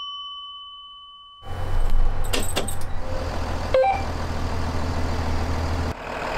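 A chime rings and fades away, then a school bus's two-way radio hisses with static over the low hum of the bus engine, with a click and a brief tone near four seconds in.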